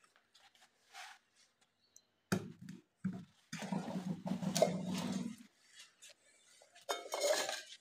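Covered metal pot of freshly popped popcorn being taken off the gas stove and set on the stone counter: a knock about two seconds in, then about two seconds of scraping as it is slid across the counter, and a short clatter near the end.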